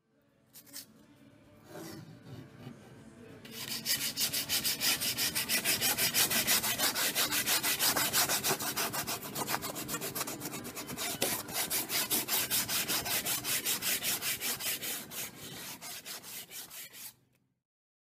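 Hand-sanding a wooden board's edge: after a few seconds of quieter handling, a long run of quick, even back-and-forth rubbing strokes that stops abruptly.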